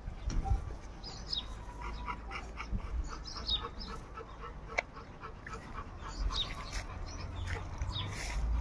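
Rottweilers in a wire-mesh kennel giving short, high whimpers now and then, with a single sharp click about five seconds in.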